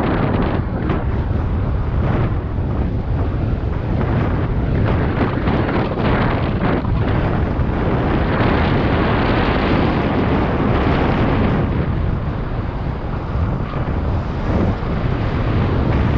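Wind buffeting the action-camera microphone while a mountain bike rolls fast over a dirt forest trail, with the tyres' rumble and frequent short knocks and rattles from the bike over bumps.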